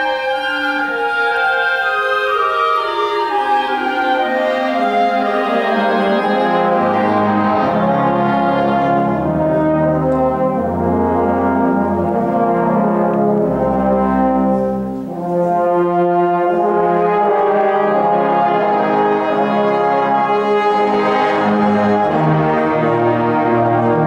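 School concert wind band playing, with French horns and low brass such as euphoniums and tubas to the fore. Low bass notes join a few seconds in, and the band briefly drops away about fifteen seconds in before coming back in full.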